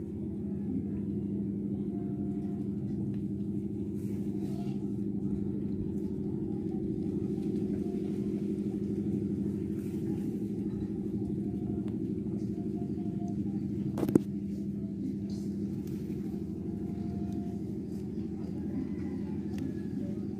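A steady low hum runs throughout, with a single sharp click about fourteen seconds in.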